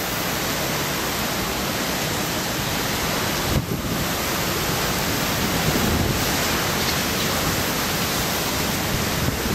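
Typhoon wind and heavy rain, a steady rushing noise with a brief dip about three and a half seconds in.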